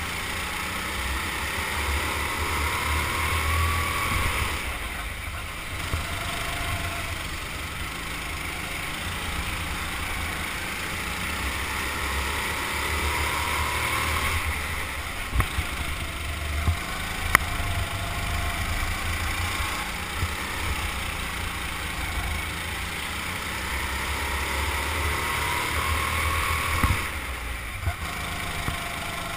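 Rental go-kart engine running at speed on an indoor track, heard from on board the kart; its pitch rises and falls every several seconds as the driver goes on and off the throttle through the corners. A few sharp knocks stand out about halfway through and once near the end.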